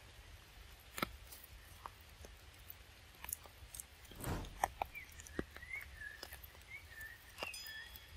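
Macaques chewing and handling pieces of mango: scattered soft clicks and smacks, with a brief rustle about four seconds in. A faint, wavering high whistle runs through the second half.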